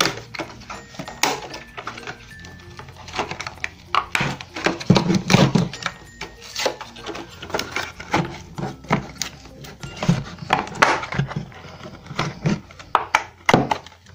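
Irregular clicks, knocks and rustles of a phone tripod stand and its packaging being unboxed and handled, heaviest around four to six seconds in.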